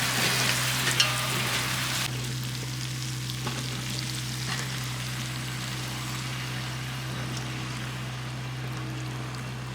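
Food frying in a pan with a hissing sizzle that is loudest for the first two seconds, then drops off sharply to a quieter sizzle, over a steady low hum. There is a small click about a second in.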